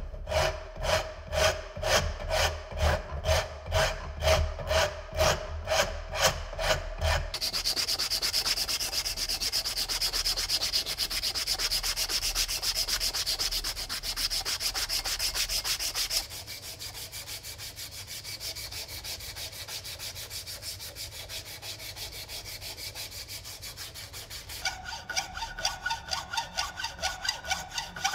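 Hand file rasping across the steel head of a forged hammer clamped in a vise, in even strokes about three a second. After about seven seconds this gives way to fast continuous scraping and rubbing on the head, quieter after about sixteen seconds. From about twenty-five seconds a hacksaw cuts through the hammer's wooden handle in rhythmic strokes.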